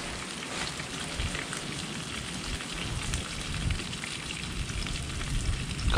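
Wind on an action camera's microphone: a steady hiss with uneven low rumbling from gusts.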